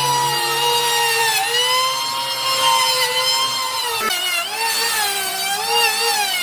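Electric power tool motor running continuously with a whine whose pitch wavers and dips several times, most clearly about four seconds in, as it works wood.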